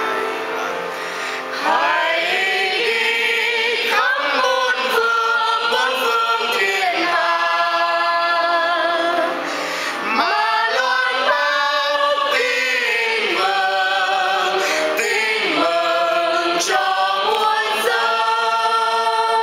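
Choir of mixed men's and women's voices singing a hymn at Mass, in long held phrases with a brief pause about nine seconds in.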